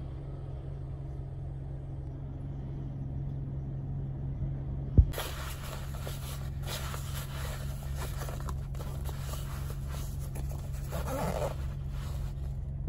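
Steady low hum of a car idling, heard from inside the cabin. About five seconds in there is a sharp click, after which a steady hiss and the rustling of a fabric bag being rummaged through join the hum.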